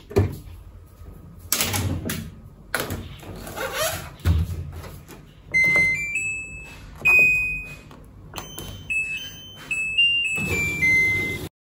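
A few thuds and rustles, then a washing machine's control panel beeping a short electronic tune of clear high notes that step up and down and fall away at the end.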